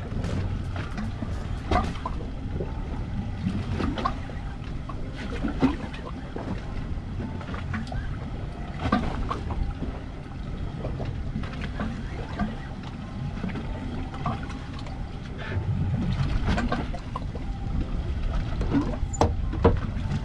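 Water slapping against the hull of a drifting fishing boat over a steady low rumble of sea and wind, with scattered short knocks.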